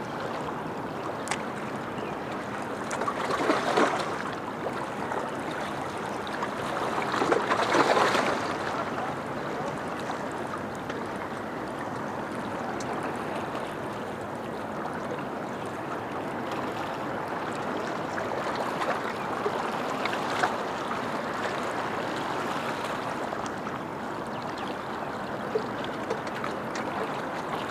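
Ocean surf washing ashore: a steady wash of water with two louder waves breaking about four and eight seconds in.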